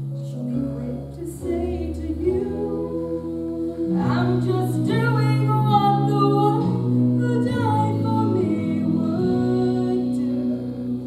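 A woman singing into a handheld microphone over accompaniment of long held low notes that change every few seconds; her voice rises and grows louder about four seconds in.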